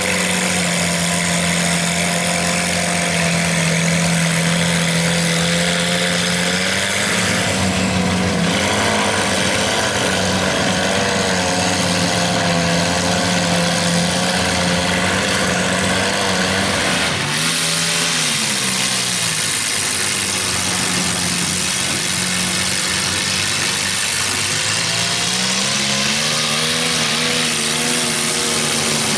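Engine of a lifted, Suzuki Samurai-bodied mud truck running under load as it drives through deep mud, its revs holding, wavering and rising again, over a steady hiss.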